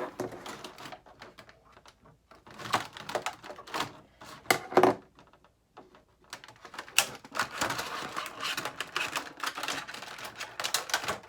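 Plastic toy packaging being handled and worked open: rapid clicking, rattling and crinkling in uneven clusters, with a brief quiet pause around the middle and denser crackling after it.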